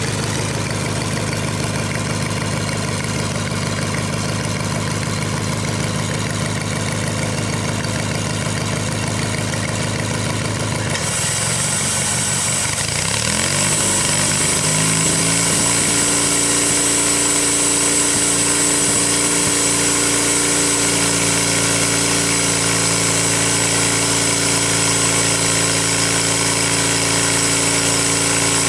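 Sawmill's engine running at low speed, then about eleven seconds in it speeds up, its pitch rising over a few seconds, and a high steady whine joins in as it runs on at the higher speed.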